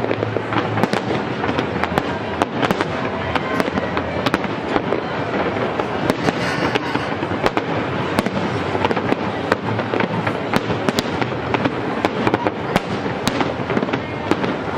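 Fireworks display: a rapid barrage of sharp cracks and bangs, many a second, over a dense continuous crackle.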